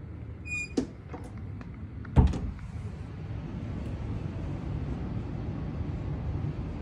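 Closet door squeaking briefly, then shutting with a sharp thump about two seconds in. A steady low rumble runs underneath.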